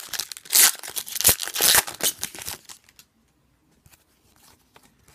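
A trading card pack wrapper being torn open and crinkled, a quick run of rustling tears over the first three seconds. After that, only a few faint ticks of cards being handled.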